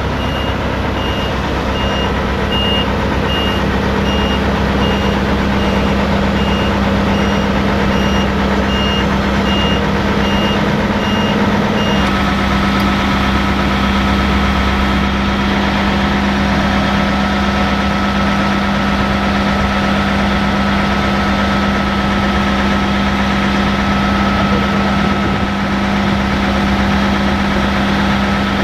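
A heavy farm machine's diesel engine running steadily while its reversing alarm beeps in an even series; the beeping stops about twelve seconds in, and a steady high whine comes in over the engine.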